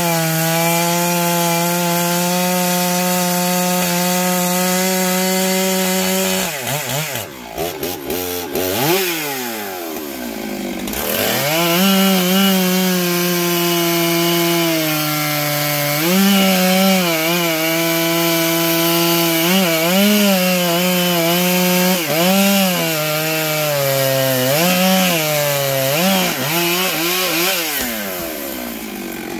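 Stihl 661 two-stroke chainsaw cutting through a felled oak trunk at full throttle. About a third of the way in the engine drops off and revs back up, then it bogs down and recovers again and again as the chain loads in the cut.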